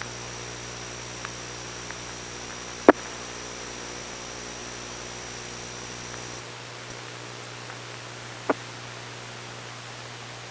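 Steady electrical hum with faint hiss on a television broadcast's audio feed, broken by two short sharp clicks, one about three seconds in and another near eight and a half seconds in; the hum thins slightly a little past the middle.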